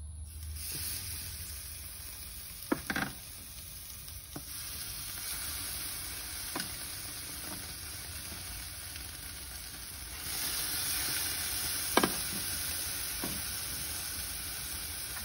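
Country-style pork ribs sizzling as they are laid on a hot charcoal grill grate to sear, with a few sharp clicks of the tongs against the grate. The sizzle gets louder about ten seconds in as more ribs go on.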